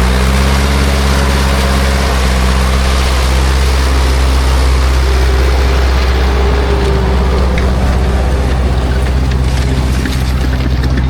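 Ursus C-360's four-cylinder diesel engine running steadily under load while pulling a disc harrow, with a steady hiss over the engine note.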